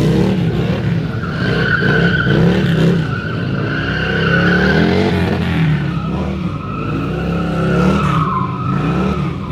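Stunt motorcycle's engine revving hard, its pitch rising and falling over and over, with a tyre squealing high above it as the rear wheel slides on asphalt.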